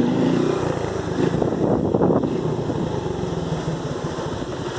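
Motorcycle engine running under way, a steady rapid pulsing, with wind buffeting the microphone.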